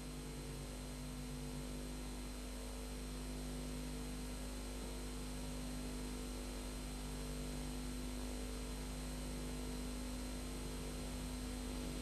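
Steady electrical hum with an even hiss from an old videotape recording, with faint held low tones coming and going every second or two.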